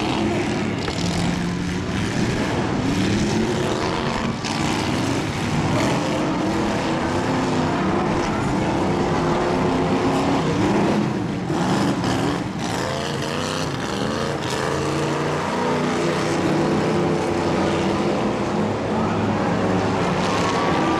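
Several demolition derby cars' engines revving at once, their pitches rising and falling over one another, with a couple of sharp knocks near the middle.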